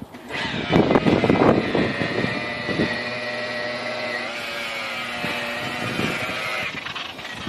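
DeWalt DWP849X rotary polisher running steadily with a high, even whine while buffing compound into gelcoat, with some irregular bumping in the first couple of seconds.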